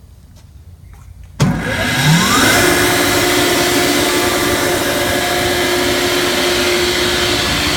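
Ingersoll Rand SSR-EP30SE 30 hp rotary screw air compressor starting up: its three-phase electric motor kicks in suddenly about a second and a half in and winds up in pitch over about a second, then runs steadily with a loud whine over a hiss.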